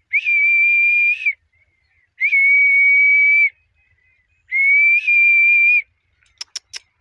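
Three long, steady whistle notes, each a little over a second, at one high pitch with a slight lift at the start of each. Three quick sharp clicks follow near the end.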